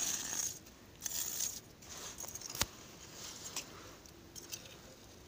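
Ice skimmer scooping slush and ice chips out of a fishing hole in the ice: a few short scraping swishes, with a sharp knock about two and a half seconds in.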